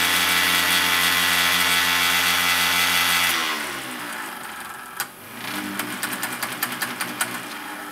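Small DC toy motor of a snap-circuit electronics kit spinning a plastic propeller with a steady whine, running in reverse so it blows air like a fan. A little over three seconds in the power is cut and the whine slides down in pitch as it spins down, followed by a run of light clicks.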